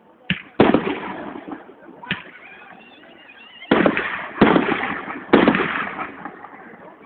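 Fireworks display: aerial shells bursting, each a sudden boom that trails off in a rumbling echo. One big burst comes about half a second in and three come in quick succession in the second half, with smaller pops and a brief whistle in the lull between.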